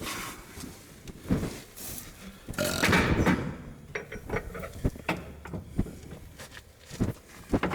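Scattered metal clanks and knocks from handling snowblower and tractor hitch parts, with a louder scraping rattle about three seconds in.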